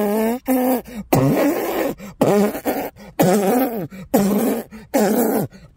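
A man vocally imitating a loud, machine-gun-like popping exhaust. He makes about eight rasping 'brrap' bursts, roughly one every three-quarters of a second, each rising and falling in pitch.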